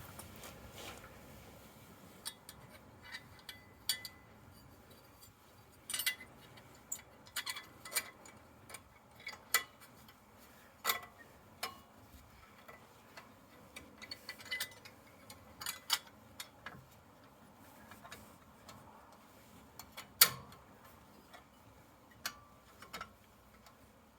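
Scattered sharp metallic clicks and clinks of hand tools and brake hardware being handled, coming irregularly in small clusters, with one louder knock about twenty seconds in.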